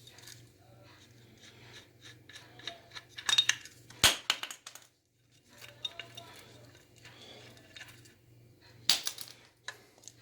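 Metal parts and tools clicking and clinking as an air compressor's pressure switch and regulator assembly is taken apart by hand, with a few sharp clicks, the loudest about four seconds in and another about nine seconds in.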